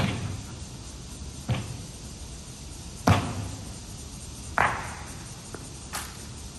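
Honor guards' boots stamping hard on the stone platform during a ceremonial drill: four loud stamps about a second and a half apart, each ringing briefly, followed near the end by lighter clacks.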